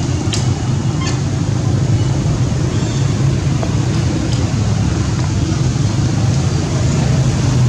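Steady low rumble, with two faint clicks about half a second and a second in.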